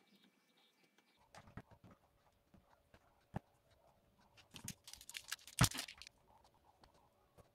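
Light taps, clicks and rustles of hands handling a miniature dollhouse wall cabinet and its small door, with a sharp knock about three seconds in and a quick flurry of clicks around five to six seconds in.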